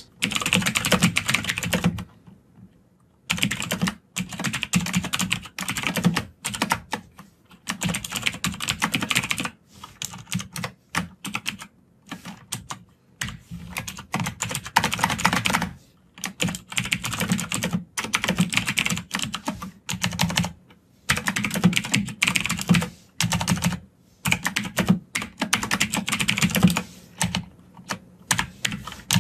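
Computer keyboard typing in quick runs of keystrokes, broken by short pauses of about a second.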